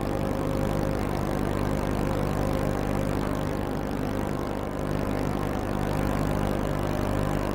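Boat engine running steadily at an even pitch, a low continuous drone that holds without revving up or down.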